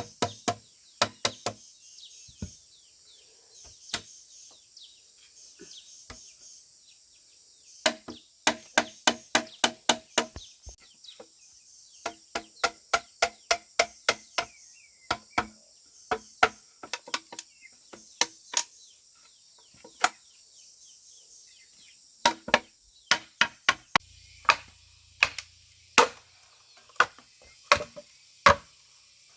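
Hand tool striking bamboo again and again: sharp, separate blows in quick runs of about three a second, with short pauses between the runs.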